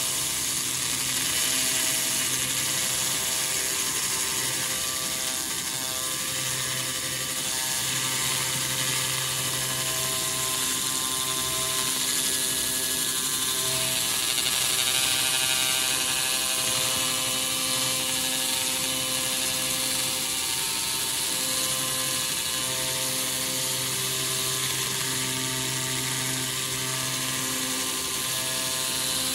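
200 W Gaussian-beam cleaning laser ablating paint and rust from a steel part: a steady hiss, high in pitch, over a hum of several steady tones that fade in and out.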